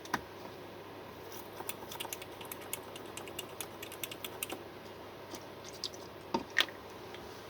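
Light, rapid clicking and tapping of a small tool against a car key fob's circuit board as it is cleaned with isopropyl alcohol, with two louder clicks near the end.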